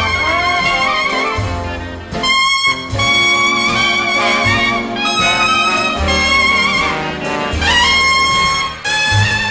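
Background jazz music led by a brass horn holding long wavering notes over a bass line. The band breaks off briefly about two seconds in, and near the end the horn slides up into a high note.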